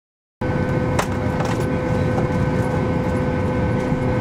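Cabin ambience of a Boeing 737-800 parked at the gate: a steady low rumble from the aircraft's air system with a constant whine over it, starting about half a second in, with a couple of light clicks.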